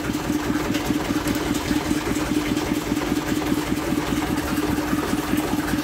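Ursus C-330 tractor's two-cylinder diesel engine idling steadily, with a fast, even chug and a steady hum.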